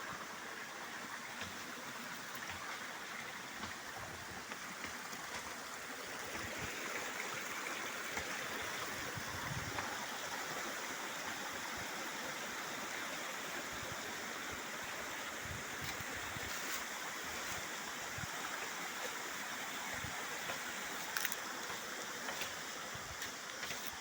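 Waterfall's falling water rushing steadily in an even, unbroken hiss, with scattered low thumps and a few brief clicks near the end.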